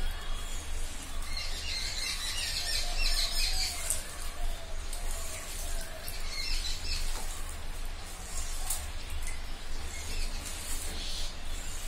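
Small birds chirping in quick runs of short notes, about a second in and again around the middle. Underneath is soft squelching and clicking of boiled potato being mashed by hand in a steel bowl.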